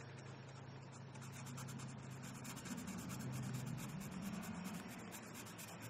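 Prismacolor Premier art marker tip scratching across coloring-book paper in many short, quick strokes, faint, over a steady low hum.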